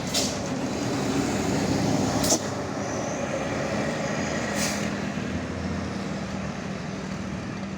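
A heavy road vehicle, a bus or truck, passing close by: its engine noise builds for about two seconds, drops off suddenly and then slowly fades. Three short sharp hisses come about two seconds apart.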